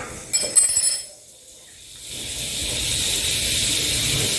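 A few quick metallic clinks, then the steady sizzle of breaded skate wings frying in olive oil and butter, swelling about two seconds in and holding.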